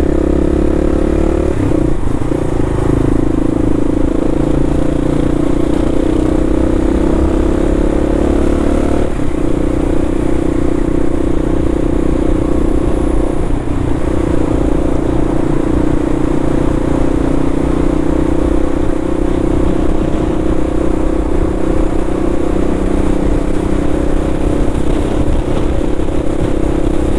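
Kawasaki KLR dual-sport motorcycle's single-cylinder engine running steadily at cruising speed. Its even drone sits over a constant low rumble of road and wind noise.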